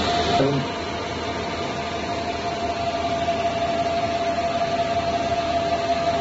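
CO2 laser marking machine and its cooling fans running: a steady hum with a constant whine. A brighter hiss drops away about half a second in.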